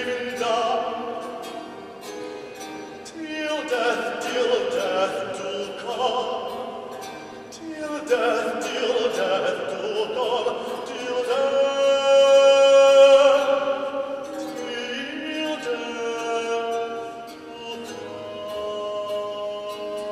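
A baritone singing classical art song with harpsichord accompaniment: long notes with vibrato over light plucked harpsichord chords, the loudest a held note about twelve seconds in.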